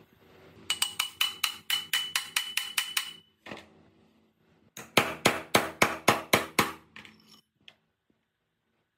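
Quick hammer blows on metal as a steel shaft is driven into a machine housing: a run of about a dozen ringing strikes at about five a second, a short pause, then about nine more.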